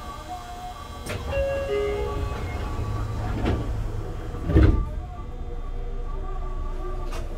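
Tokyu 9000 series commuter train's passenger doors closing at a station: a few short tones sound, then the doors slide shut with one loud thud about four and a half seconds in.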